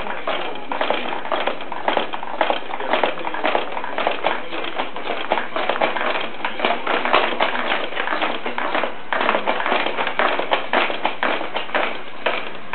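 Baby bouncing in a Fisher-Price Jumperoo: a fast, irregular run of taps and clatters from the bouncer's frame, springs and tray toys.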